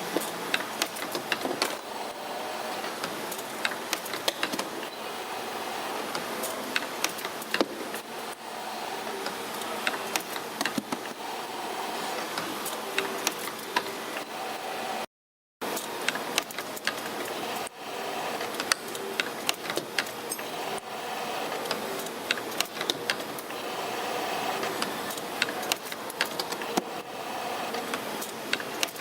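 SIMCO CNC-620RS spring forming machine running, feeding and coiling magnet wire into springs: a steady mechanical whir with frequent sharp clicks. The sound cuts out completely for about half a second midway.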